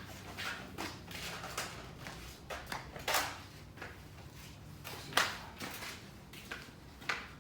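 Handling noise: about five short rustles and light knocks spread through, the loudest a little after the middle, over a low steady hum.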